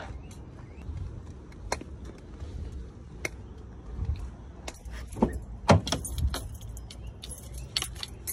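Keys jangling in hand with scattered sharp clicks and knocks, as of walking with a crutch, growing denser and louder in the second half as a car door is opened.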